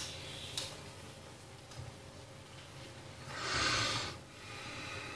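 Two sharp clicks about half a second apart, then near the end a loud breathy rush of noise lasting about a second, from a person coming right up to the microphone.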